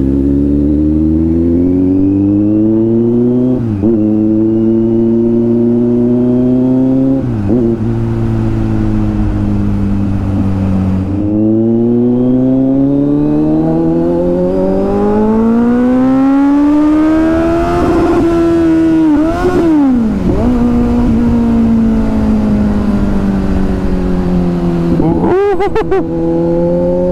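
Kawasaki Z900's inline-four engine accelerating hard through the gears on the road. Its pitch climbs under throttle and drops sharply at each shift, several times, over steady wind and road noise.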